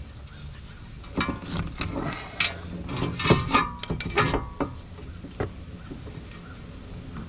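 Pliers clinking and scraping against a front brake caliper as the caliper piston is squeezed back into its bore, with a cluster of sharp metallic clicks and knocks between about one and five seconds in, then quieter handling.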